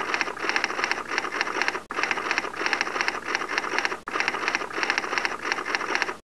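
Typewriter sound effect: rapid key clacks in three runs, broken briefly about two and four seconds in, cutting off just before the end.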